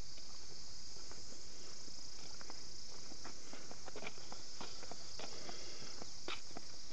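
Footsteps crunching on a dirt forest track, irregular soft steps, over a steady high-pitched insect chorus.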